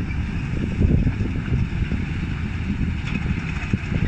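Scania G480 6x6 truck's straight-six diesel engine pulling a loaded lowboy trailer through a shallow river: a steady low rumble, with water rushing and splashing around the wheels.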